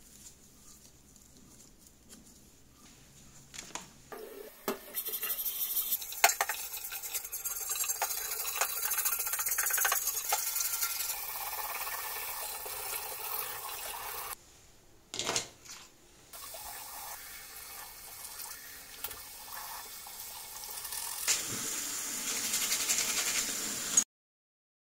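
Water running from a tap into a sink while small brass blow torch parts are scrubbed under the stream with a brush, with a few clicks and knocks. The water breaks off briefly about halfway through and stops suddenly near the end.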